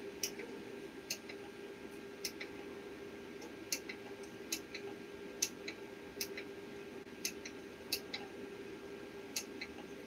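Small plastic button clicks at an irregular pace, roughly one every half second to a second, as a projector's menus are navigated, over a steady low hum.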